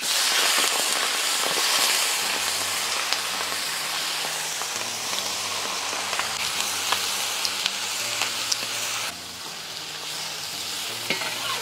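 Hot oil sizzling in a wok as chopped napa cabbage is stir-fried, with occasional clicks of the spatula against the wok. The sizzle drops down about nine seconds in.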